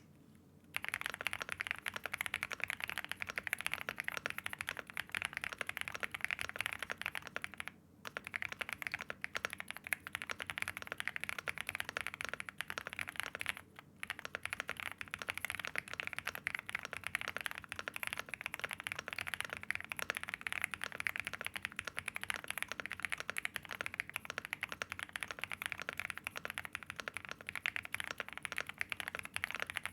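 Continuous fast typing on a Velocifire INFI75 gasket-mounted 75% mechanical keyboard with double-shot PBT keycaps and multiple layers of foam: a dense run of key clicks with a foamy sound. The typing starts just under a second in and breaks off briefly twice.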